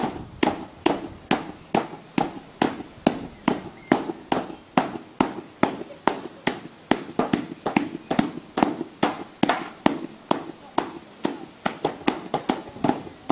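A rattan carpet beater and a wooden stick beating a soaped sheepskin fleece on a table: a steady run of sharp slaps, about two to three a second, some of them doubled. The beating works the wool into felt.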